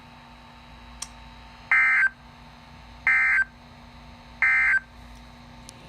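Three short, loud bursts of Emergency Alert System SAME data tones, evenly spaced about a second and a half apart: the end-of-message code that closes an alert broadcast. A faint click about a second in.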